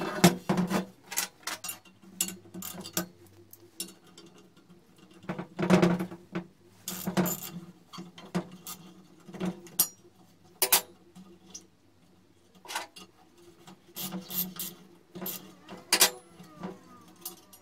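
Irregular metal knocks and clanks, some with a short ring, from a small anvil and a socket ratchet being handled on a steel workbench while the anvil's fixing nut is undone.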